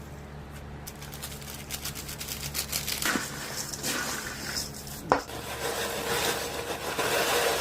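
Cooking utensil clinking and scraping against a pan, with one sharp knock about five seconds in, over a steady low hum.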